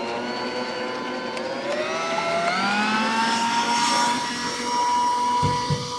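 Bosch stand mixer running on high with its twin wire whisks beating egg whites: a steady motor whine that climbs in pitch about two seconds in as it speeds up, then holds steady.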